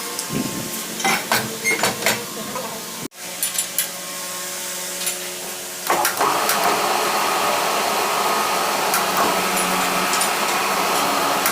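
Sharp metal knocks and clinks of work on a metal part, then about six seconds in a machine starts and runs steadily with a hissing, whirring sound.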